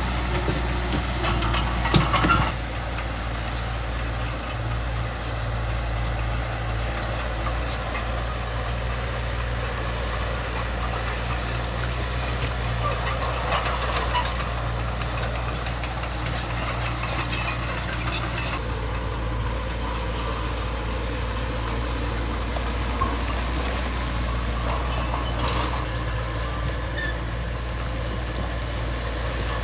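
Heavy diesel earthmoving machine engine running steadily at a low, even pitch, with a few sharp metallic knocks, the loudest about two seconds in.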